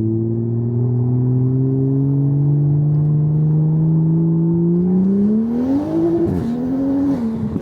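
Toyota Supra MK5's tuned B58 turbocharged inline-six with a catless downpipe and titanium exhaust, heard from the cabin under hard acceleration. Revs climb steadily, then rise sharply about five seconds in, dip briefly, and fall away near the end as the throttle is lifted.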